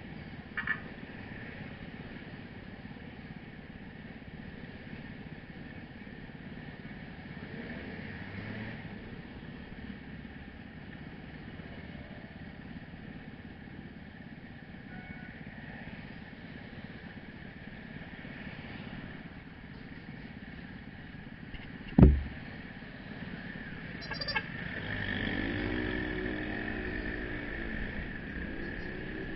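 Motorcycle engine idling amid street traffic, with one loud sharp knock about three-quarters of the way through. Near the end the engine revs up as the motorcycle pulls away.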